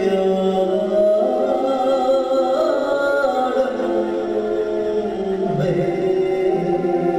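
Traditional Vietnamese music with singing, of the kind that accompanies a water puppet show: held notes and sliding pitches from voices and instruments together.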